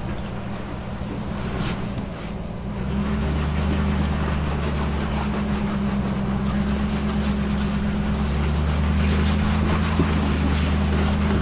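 Off-road Jeep's engine running steadily at low speed under load while crawling the trail, its drone growing louder about three seconds in.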